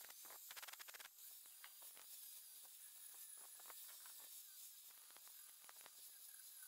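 Near silence: a faint, even hiss with scattered light clicks.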